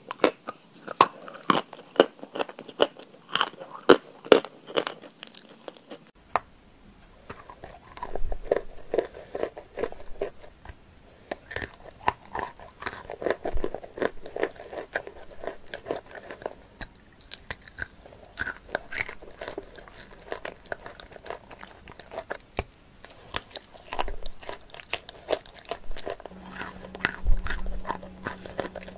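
Close-miked eating sounds: a person biting and chewing crunchy food, dense with sharp crunches. About six seconds in the recording cuts to softer, duller chewing.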